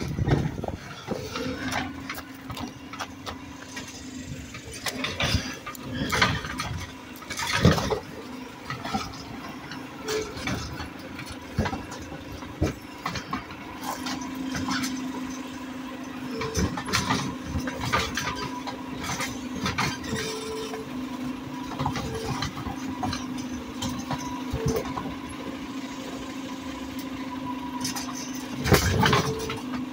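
Automated side-loader garbage truck working its hydraulic arm: a steady engine and hydraulic drone with a faint high whine, broken by clatter and knocks as plastic carts are grabbed, dumped and set back down. The loudest bangs come about a quarter of the way in and near the end.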